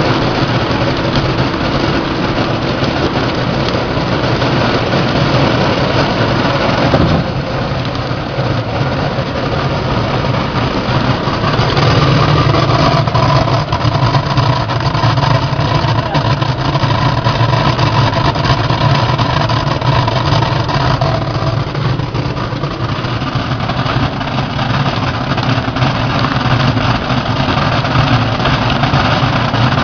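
Angelon shrimp colour sorting machine running with its vibratory feeder on: a loud, steady hum with an even hiss over it. The hum dips about seven seconds in and comes back stronger around twelve seconds.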